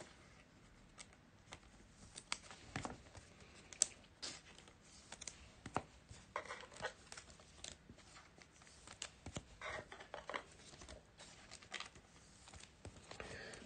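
Trading cards being handled and one slid into a clear plastic sleeve: scattered soft clicks and brief rustles of plastic.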